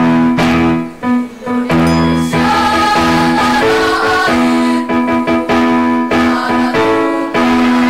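Children's choir singing, with piano accompaniment, in long held notes.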